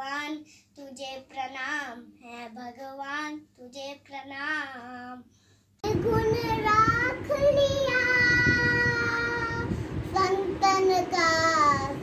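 A young boy singing unaccompanied in short phrases; about six seconds in, a cut to a young girl singing held notes over a louder steady background hiss.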